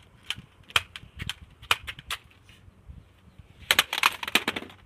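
A toy Nerf foam-dart blaster being primed and fired, a string of sharp plastic clicks every third to half second, then a quick, dense clatter near the end.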